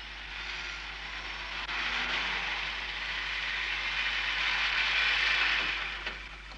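A passing vehicle: a rushing noise that swells for about five seconds, then dies away near the end.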